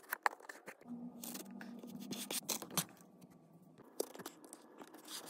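Kinetic sand being shaped and squished, giving an irregular run of crisp scratching and crackling with sharp little clicks.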